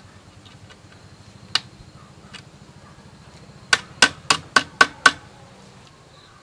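Pliers clicking on a bamboo pole joint as it is being tied: one sharp click, then a quick run of six sharp clicks, about four a second.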